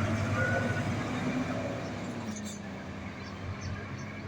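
Scania truck's diesel engine rumbling steadily, its sound fading gradually.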